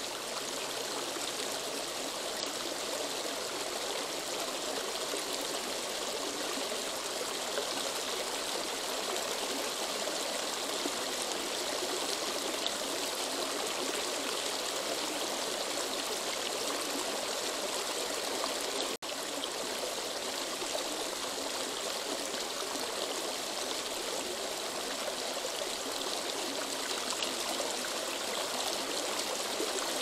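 Small woodland creek flowing and trickling over stones, a steady rush of water. It drops out for an instant about two-thirds of the way through, then goes on as before.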